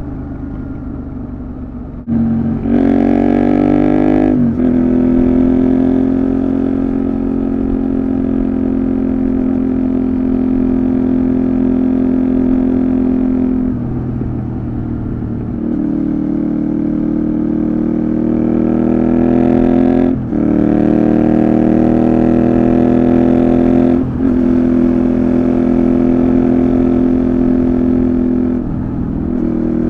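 Honda VTR250 V-twin with a Moriwaki complete exhaust system running under way. The engine note climbs slowly in pitch and breaks off briefly about five times, at about 2, 4, 20, 24 and 29 seconds in, as the rider accelerates and shifts up or comes off the throttle. The level drops for a couple of seconds about halfway through.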